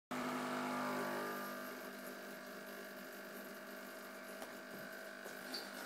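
Steady electrical hum made of several fixed tones, a little louder for about the first second and then settling lower.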